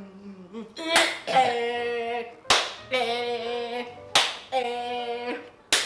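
Four sharp claps or slaps, about one and a half seconds apart, each followed by a held, slightly wavering sung note of about a second.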